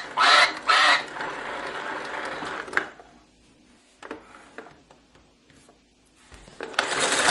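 'The Farmer Says' See 'n Say talking toy: its recorded playback comes through its small speaker for the first three seconds. Then come quiet handling clicks as the pointer is turned, and near the end the pull-lever winds with a ratcheting whir.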